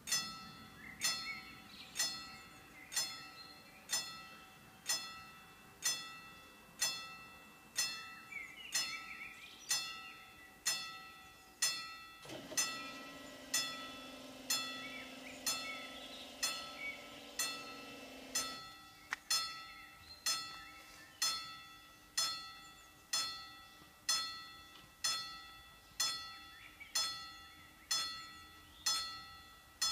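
Level-crossing warning bells striking about once a second, each strike ringing and dying away. Partway through, the barrier drive motor hums for about six seconds as the booms lower.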